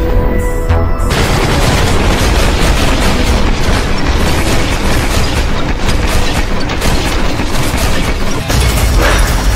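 Dramatic action-trailer music with heavy booms. About a second in, a dense wash of rapid gunfire and explosions comes in over it.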